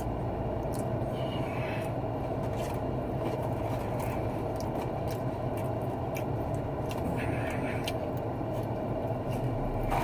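Steady low hum inside a car cabin, with faint light scrapes and rustles as fries are picked through in their container.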